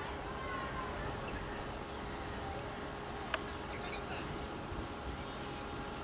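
Outdoor ambience: a steady hiss with insects chirping in short, evenly repeated notes, a few faint bird calls, and one sharp click a little after the middle.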